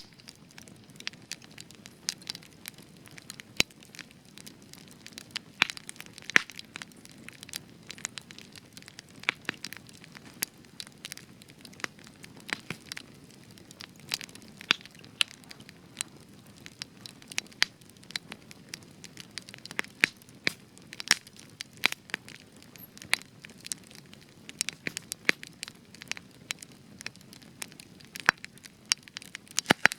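Spruce wood burning in a campfire, crackling and popping irregularly, several sharp pops a second over a low steady hiss of the flames.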